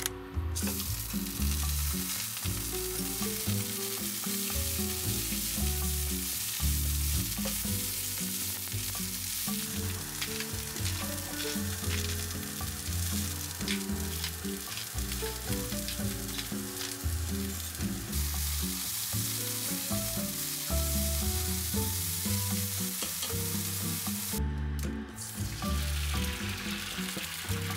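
Spinach frying in hot oil in a small rectangular pan, sizzling steadily, with scattered clicks of stirring. Near the end the sizzle cuts out briefly and starts again as an egg goes into the pan. Soft background music plays underneath.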